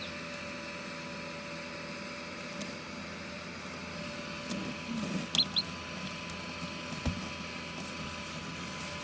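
Steady hum of an egg incubator's fan, with two short, high peeps from a hatching chick about five seconds in and a single soft click near seven seconds.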